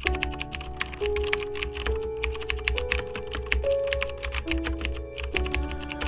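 Rapid, irregular computer-keyboard typing clicks, a sound effect to text being typed out, over background music whose held melody notes step upward about once a second and drop back about two-thirds of the way through.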